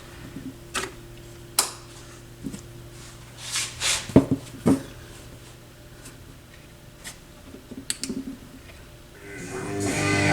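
Pioneer SX 6000 stereo receiver powered up and heard through its speakers: a low steady hum with scattered clicks and scratches as its switches and controls are worked. Near the end a broadcast fades in as a station is tuned.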